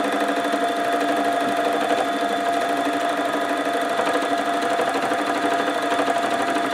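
Simplicity 12-needle electric felting machine running steadily as its needles punch wool into a soft base, giving an even mechanical hum. There is little crunching noise because the base is soft.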